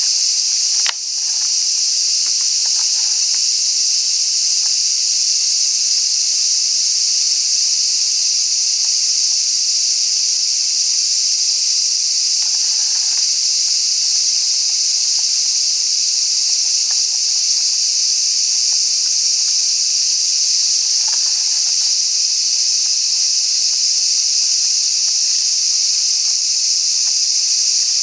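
A steady, loud, high-pitched chorus of insects shrilling without a break. A sharp click sounds about a second in, and a couple of faint short soft sounds come and go beneath it.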